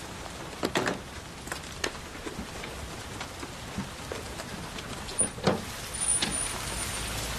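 Scattered knocks and bumps of someone moving about, then a window being worked open with a thin high squeak. Near the end the steady hiss of rain outside grows louder.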